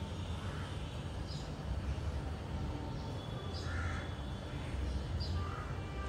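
Crows cawing a few times over a steady low rumble, with a few short high chirps between the caws.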